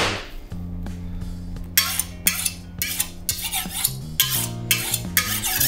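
Chef's knife being honed on a steel: about eight quick ringing metal-on-metal strokes, starting about two seconds in, over background music. A single thud comes right at the start.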